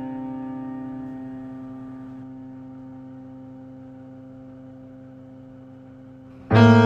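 Music: a sustained instrumental chord fading slowly, then a new loud chord struck near the end.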